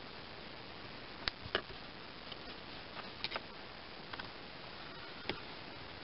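A scattered handful of sharp, light clicks from a small flat-blade tool working at a clip on a seat belt buckle's wire, over a low hiss.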